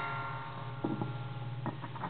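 Homemade noise box, with springs, wire strings and metal rods mounted on a small metal box, ringing with a fading metallic drone of many tones. A few light pencil taps sound on it about a second in and near the end.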